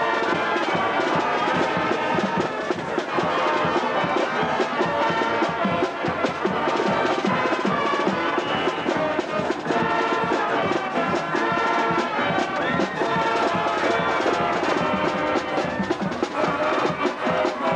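Brass band music with percussion, playing steadily at an even level.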